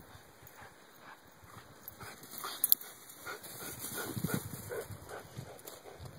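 An Appenzeller mountain dog whimpering in a run of short, repeated calls, with one sharp click about two and a half seconds in.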